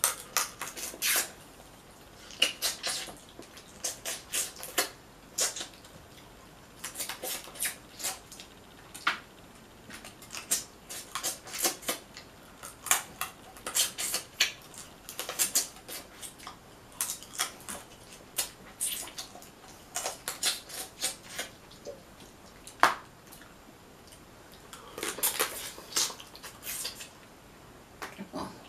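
Close-up eating of boiled Dungeness crab by hand: irregular smacking and sucking clicks of mouth and fingers as the meat is picked from the shell, with a denser cluster of clicks and handling noise near the end.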